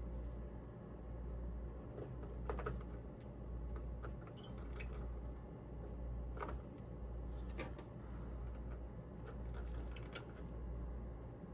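Scattered light clicks and taps of small metal parts and tools being handled while a RAM heat spreader and cooling block are assembled, over a steady low hum.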